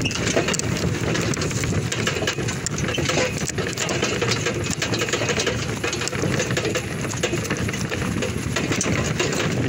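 Horse-drawn cart rolling along a paved road behind a walking draft mare: a steady, dense rattle of many small clicks.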